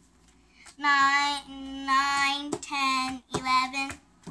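A young girl counting aloud in a sing-song voice, drawing each number out into a held note on nearly the same pitch, several in a row starting about a second in.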